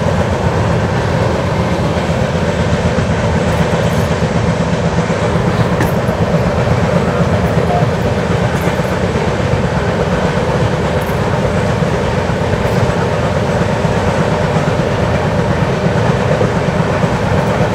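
Steady rumble and rail noise of an LHB passenger coach running at speed on the track, with some wheel clatter over the rails.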